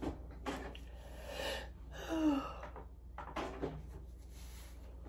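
A woman yawning: breathy inhaling with a short falling vocal sound about two seconds in, a sign of tiredness.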